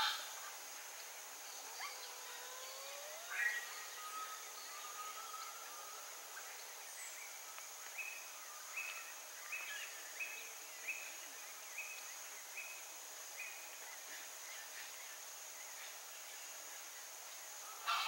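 Chaco chachalaca calling, fairly faint: a couple of rising notes early on, then a run of about eight short repeated notes, about two a second.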